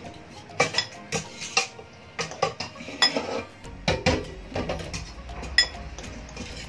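Metal fork and spoon clinking and scraping against a bowl as instant noodles are tossed with their sauce, in a quick, irregular run of clinks.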